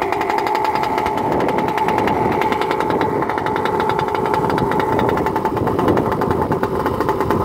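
Small two-stroke gasoline engine of a 1/5-scale Losi 5ive-T RC truck, an OBR 47cc, running steadily at idle with an even, rapid firing beat.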